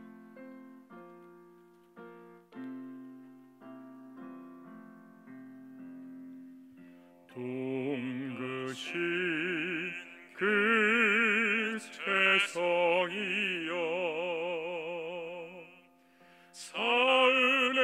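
A Won Buddhist holy song (seonga) with piano accompaniment: a piano introduction of single sustained notes, then about seven seconds in a solo voice begins singing with strong vibrato over the piano.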